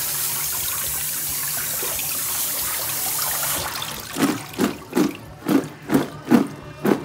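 Kitchen tap running as kumquats are rinsed, shutting off about three and a half seconds in. Then a run of soft, rhythmic thumps, about two to three a second.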